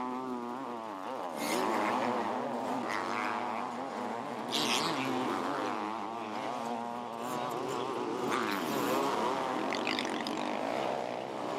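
Several 500cc motocross bikes racing on a dirt track, their engines revving up and down through corners, with a few brief louder bursts.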